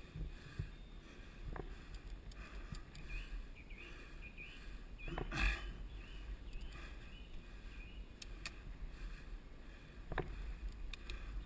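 Mountain bike ridden over a dirt forest trail: wind buffeting the microphone with a steady low rumble, and the bike rattling and knocking over the ground, with a sharper, louder sound about five and a half seconds in.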